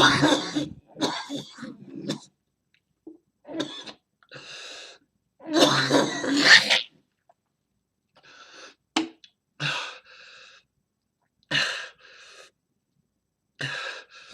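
A man coughing and wheezing in repeated harsh fits, with gasps between them, from the burn of a swallowed sun-dried ghost chili pepper. The loudest fits come right at the start and in a long bout about six seconds in.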